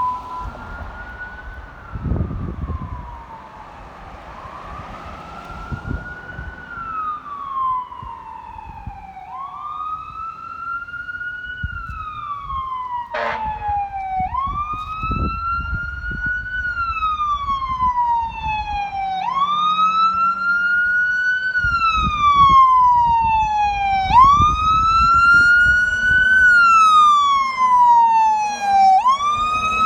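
Fire engine siren wailing, each cycle rising quickly and falling slowly over about five seconds, growing louder as the truck approaches. A short horn blast cuts in about thirteen seconds in.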